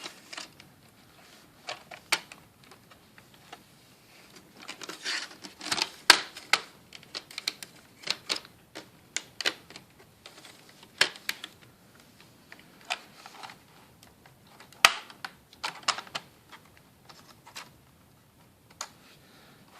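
Irregular plastic clicks and taps, with some scraping, as an HP Pavilion G-series laptop's plastic cover is pried along its edge; the cover's clips are being worked loose. A denser run of clicks comes about five seconds in.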